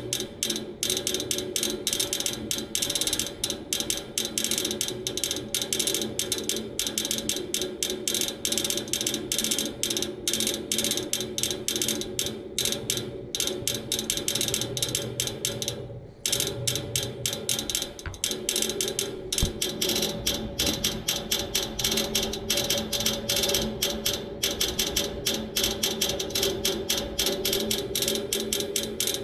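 Outdoor air-conditioner unit clicking rapidly and continuously from inside the cabinet while its fan stands still, as if it is trying to crank on something; a new motor has not stopped the clicking. The clicking falters briefly about halfway through.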